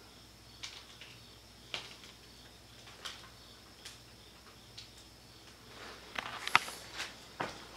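Faint scattered clicks and light knocks over a low steady hum, growing busier near the end with one sharp, louder click.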